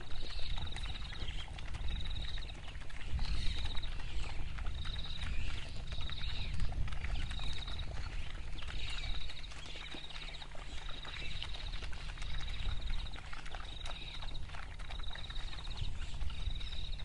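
African wild dog pups lapping water, with faint repeated clicks. Behind them a high, pulsed trill repeats about once a second over a steady low rumble.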